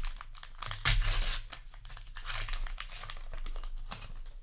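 Trading card booster pack wrapper crinkling and tearing, with the loudest rip about a second in.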